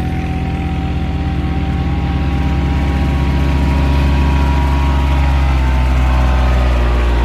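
A motor vehicle's engine running steadily, its pitch rising a little around the middle.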